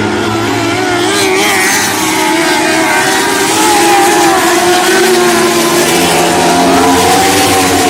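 Lightning sprint cars racing, several engines running hard at once, their pitches rising and falling as the cars go around the track.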